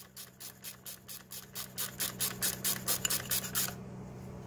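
Socket ratchet clicking in an even run of about five clicks a second while a bolt is run into the front engine mount. The clicks grow louder, then stop a little before the end, over a steady low hum.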